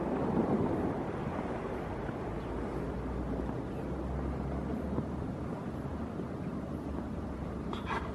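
Seaside outdoor ambience: a steady low rumble of wind on the microphone and the sea against the harbour rocks, with a brief, higher sound near the end.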